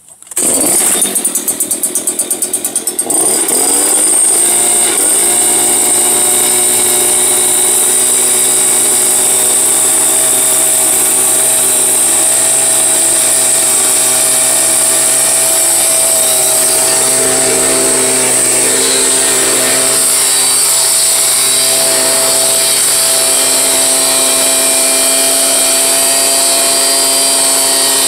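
Stihl BG 86 leaf blower's two-stroke engine starting and running unevenly with a fast pulsing for a couple of seconds, then revving up to full speed and running steadily with a loud rush of air from the tube. It is being run at full throttle after a tune-up (new air filter) to check that it still reaches about 8000 rpm.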